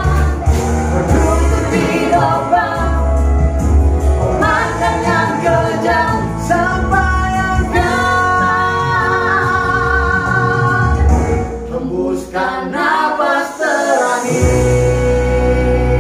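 A man and a woman singing a duet over backing music with a strong bass line; the bass drops out briefly about twelve seconds in, then comes back.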